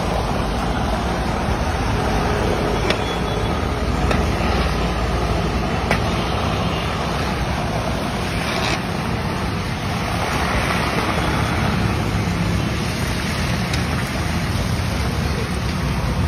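Banana slices deep-frying in a large kadai of oil, a steady sizzle, with a few clinks of a steel skimmer against the pan.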